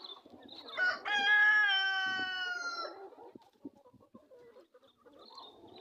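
A rooster crows once: a long, loud call starting about a second in, held for about two seconds and falling slightly in pitch at the end. Faint short high chirps come and go around it.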